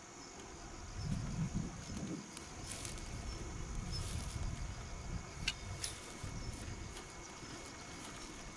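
Insects chirping steadily in a fast, even pulse, over a low rumble of wind on the microphone, with a few faint clicks about halfway through.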